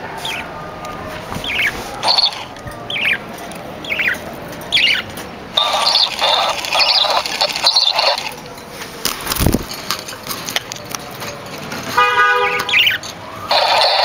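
Budgerigars chirping: short falling calls about every second, with a patch of busier chatter in the middle. Near the end a buzzy, horn-like toot sounds in quick repeats.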